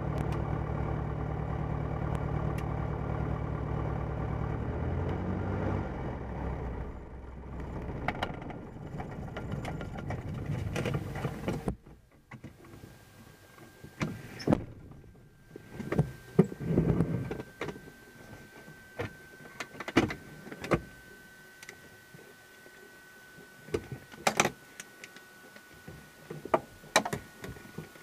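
A light aircraft's piston engine idling with its two-blade propeller turning, then shut down: it slows from about 5 s in and stops about 12 s in. After it stops come scattered clicks and knocks in the cockpit and a faint steady high-pitched tone.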